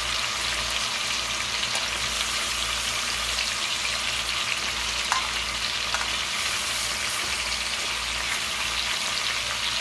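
Chicken pieces sizzling steadily in hot fat as they brown in an aluminum pot, while a fork turns them, with a couple of faint clicks about five and six seconds in.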